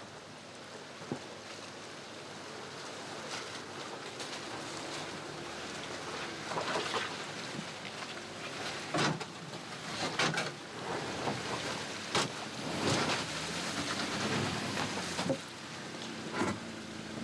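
Jeep Wrangler Unlimited engine running at low revs as it crawls through a rocky, muddy creek bed, with water and mud splashing under the tyres. Sharp knocks and splashes come several times as the wheels drop over rock ledges.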